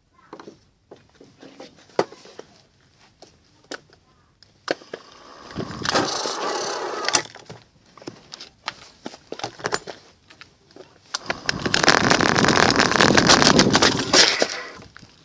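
Home-modified kids' electric micro scooter being ridden: scattered clicks and rattles from the frame and stem, then two longer surges of rolling noise from the wheels over gravel and paving. The second surge, a few seconds from the end, is the louder and longer one.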